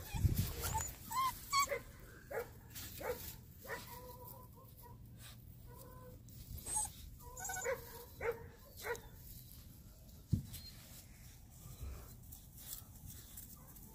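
Bernedoodle puppies whimpering and yipping in a string of short, high calls, with a single sharp thump about two-thirds of the way through.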